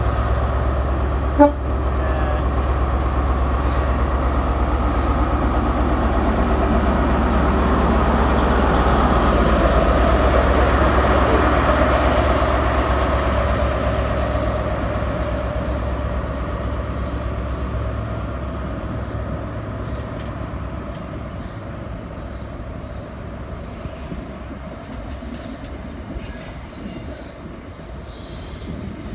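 InterCity 125 (HST) Class 43 diesel power car running past at low speed, its engine's deep drone building to a peak about ten to twelve seconds in, then fading as it draws away. A single sharp knock comes about a second and a half in. Later, quieter rail noise with a few clicks as a multiple unit rolls by.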